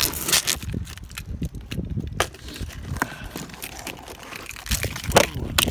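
Cardboard shipping box being opened with a key: irregular crinkling, scraping and tearing of packing tape and cardboard, loudest at the start and again near the end.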